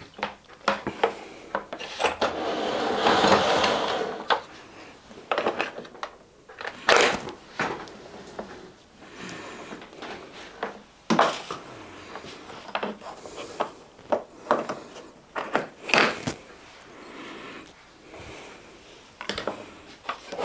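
Handling noise as a power cord is plugged in and the grill is handled: a rustling, scraping stretch about two to four seconds in, then scattered sharp clicks and knocks.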